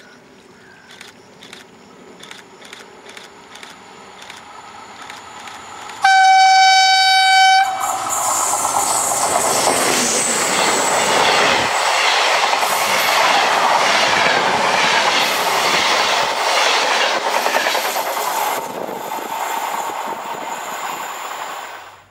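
A regional passenger train approaches with faint rail clicks, sounds its horn once in a single steady note for about a second and a half, then passes close by. The coaches go past with loud rushing and wheel noise over the rails, which eases a little near the end before cutting off.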